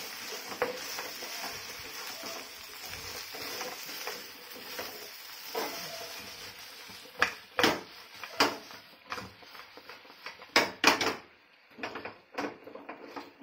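Chicken lollipops sizzling in Schezwan sauce in a nonstick frying pan while a spatula scrapes and knocks against the pan as they are tossed to coat. The sizzle fades and sharp spatula knocks take over from about seven seconds in.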